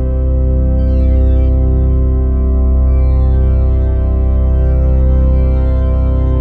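Sustained organ chords over a deep, steady bass note, with new notes entering about one and three seconds in: recorded organ samples sounded by an interactive ice organ when hands touch its ice columns.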